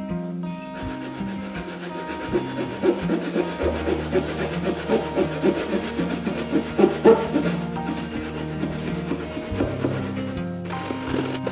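Japanese pull saw cutting through cedar strips on a kayak hull in quick, uneven strokes, over background music.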